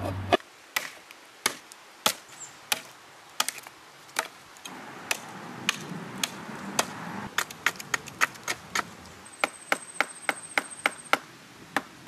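Knife chopping on a cutting board: sharp, short strokes, slow and uneven at first, quickening to about four a second in the second half.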